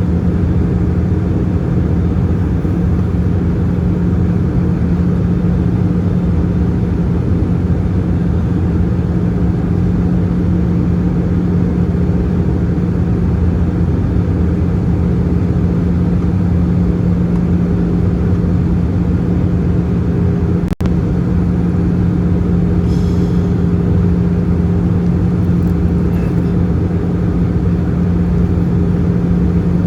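Steady cabin roar inside an Airbus A320-214 in flight: its CFM56 turbofan engines and the airflow over the fuselage, with a constant low hum under it. The sound cuts out for an instant about 21 seconds in.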